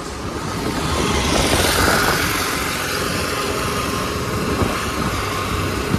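Motorcycle engine running at road speed, with steady road and wind noise that grows a little louder about two seconds in.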